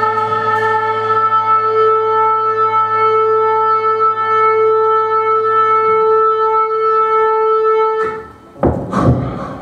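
A band holding one long sustained note with a horn-like tone and a low drone under it. The note cuts off after about eight seconds, and a couple of short noisy bursts follow near the end.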